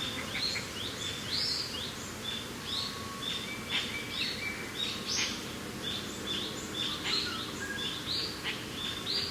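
Several birds singing and chirping, with short whistled notes and rapid chirps repeating many times, over a steady low background of wind.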